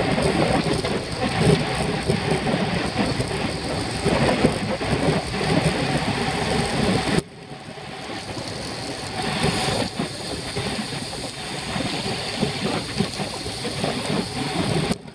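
Wind rushing over a bicycle-mounted camera's microphone with tyre and road noise from riding at race speed. It is a steady rough rush that drops sharply about seven seconds in and carries on quieter.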